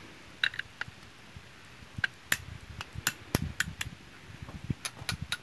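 Light metal-on-metal taps and clinks, irregular and sharp, some with a brief ring, as the rocker-arm shaft of a Field Marshal Comet 5 HP diesel engine is knocked out of its rocker bracket and the parts are handled.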